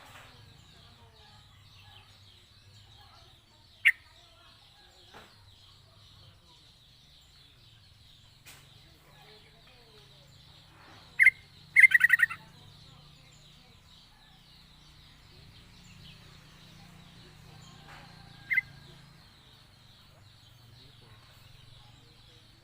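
Yellow-vented bulbul (trucukan) giving short, loud, liquid calls: one about four seconds in, two close together midway with the second a quick bubbling run, and one more later, over a faint steady high hiss.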